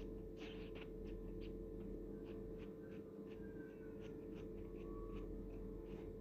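Faint scattered clicks and scratching over a steady low hum, with a few faint thin squeaks in the middle; no clear meowing.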